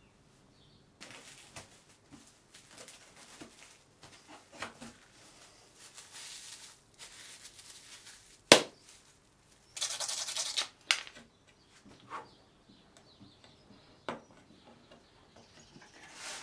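Handling noises at a workbench as thin wood veneer sheets are picked up, shuffled and laid on a guitar neck: scattered rustles and taps, one sharp knock about eight and a half seconds in, and a loud burst of rustling lasting about a second shortly after.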